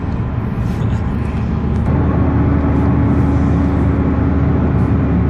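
Steady road and engine noise inside a car's cabin at highway speed, growing slightly louder. A steady hum tone joins about two seconds in.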